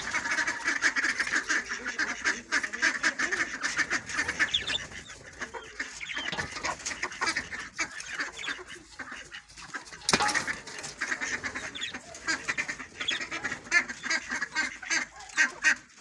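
Ducks calling and chattering in a poultry pen, over rustling as old bedding is cleared out of a nest corner by hand, with a sharp knock about ten seconds in.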